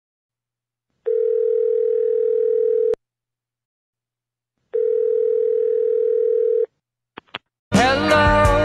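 Telephone ringback tone, the ringing a caller hears down the line: two steady low rings of about two seconds each, with a short pause between them. Then come a few quick clicks, and near the end a rock recording starts.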